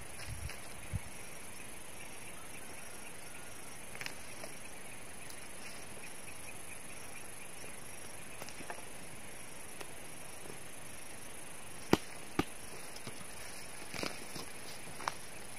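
Scattered sharp knocks and thuds of a hand tool striking roots and soil as a small tree stump is dug out, the two loudest in quick succession about twelve seconds in. Under them runs a steady chirring of insects.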